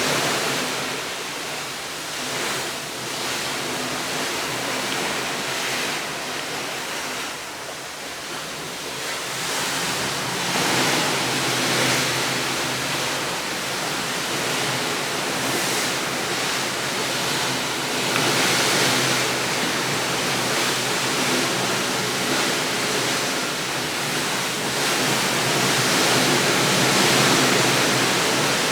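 Steady rushing noise of an outdoor ambience, swelling and easing every several seconds.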